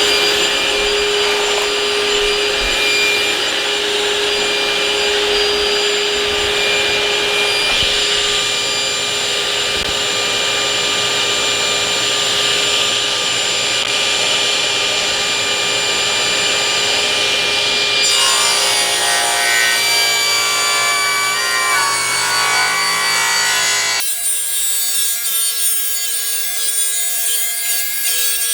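Table saw running and ripping a 2x6 board lengthwise: a steady motor whine under the blade's cutting noise. The sound changes abruptly about two-thirds of the way through and again near the end.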